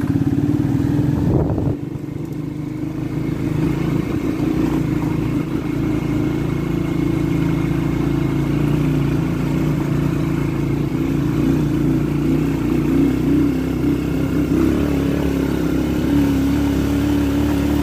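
Small motorcycle engine running steadily while riding a rough gravel road. The sound drops briefly a little under two seconds in, then climbs back and holds.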